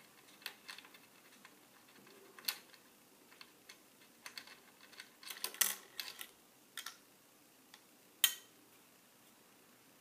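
Irregular small metal clicks and taps as the presser foot and its thumbscrew are unscrewed and lifted off a Singer 401 sewing machine and set down on its bed. There is a quick cluster of clicks around the middle and one sharp click near the end.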